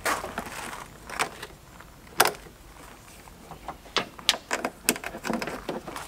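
Scattered sharp clicks and small metallic knocks of alligator battery clamps being handled and clipped onto car battery terminals, the loudest about two seconds in and a quicker run of clicks near the end.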